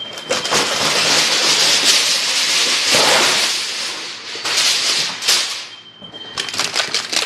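Aluminium foil being handled and crinkled around a roast: a dense crackling rustle for about four seconds, a shorter burst after it, then a run of sharp crinkles near the end.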